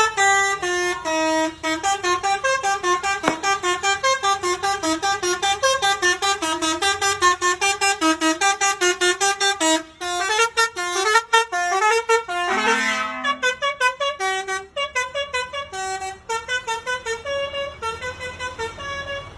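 Basuri 'telolet' multi-tone bus horn playing fast melodic tunes, short notes following one another about three a second. A new tune starts about ten seconds in. Midway through it a lower, buzzier horn note sounds briefly.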